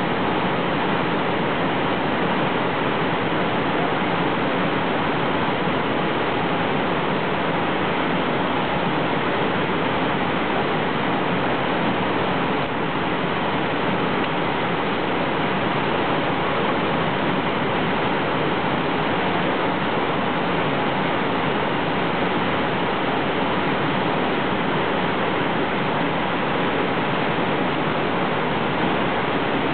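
Steady rush of whitewater as a creek pours over rocky drops and rapids.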